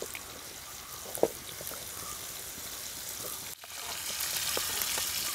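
Spice-coated fish steaks frying in hot coconut oil in a pan over a wood fire: a steady sizzling hiss with a few small pops, growing somewhat louder about three and a half seconds in.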